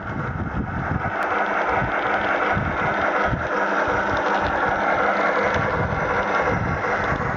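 Battery-powered Accucraft K27 model steam locomotive and its train running along garden railway track, wheels rumbling and clattering on the rails. It grows louder about a second in as it comes towards the camera, then runs on steadily.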